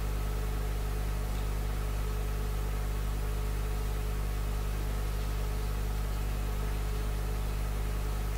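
Steady low electrical hum with a faint hiss from the microphone and sound system, unchanging throughout.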